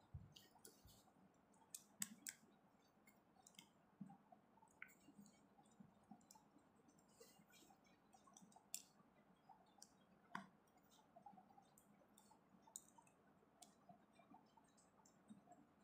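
Faint, irregular clicks of small plastic Lego pieces being handled and snapped together, the sharpest about two seconds in and about ten seconds in.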